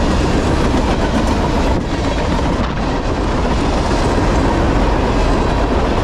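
Empty garbage-container cars of a freight train rolling past close by: a steady, loud noise of steel wheels running on the rails, strongest at the low end.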